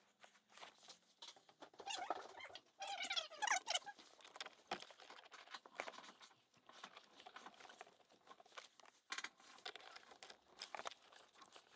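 Faint handling noises of gloved fingers working a thin ground wire and its fork crimp terminal onto a bolt on a metal bracket: soft rustles and small clicks, with a louder scratchy, squeaky stretch between about two and four seconds in.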